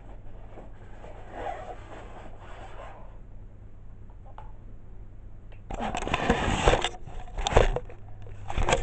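A low steady hum, then about six seconds in, loud rustling and scraping from things being handled close to the microphone, with a couple of sharp knocks near the end.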